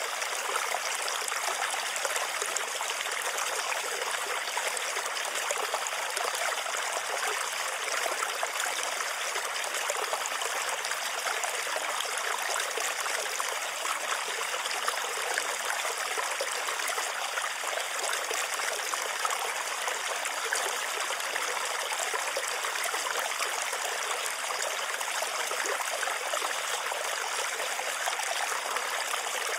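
Steady, continuous rain: a dense, even hiss of falling drops that neither builds nor fades.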